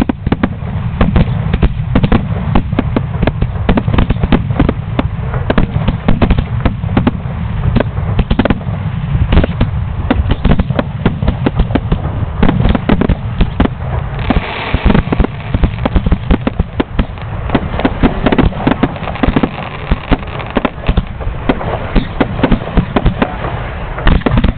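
Fireworks display at close range: a dense, continuous barrage of rapid bangs and crackles from rising comets and bursting shells, with a stretch of louder hiss a little past halfway.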